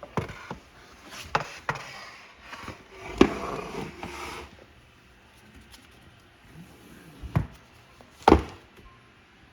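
Hand weights and other objects being handled and set down: a series of separate knocks and clunks, with a short scraping rustle in the middle and a heavier thud near the end.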